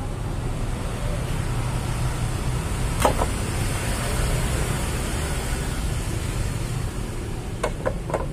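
Steady rumble of road traffic, with one sharp knock about three seconds in and a few light clicks near the end.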